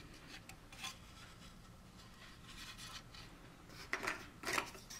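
Faint handling noise of plastic model-kit parts: light rubbing and rustling, with two louder scrapes near the end as a part is set down on the table and the next is picked up.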